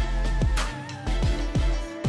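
Intro music with a steady beat of deep kick drums and held tones, with a cymbal-like hit about half a second in.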